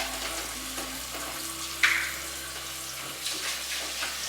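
Kitchen tap running steadily into a sink while raw chopped chicken is washed, with one sharp knock about two seconds in.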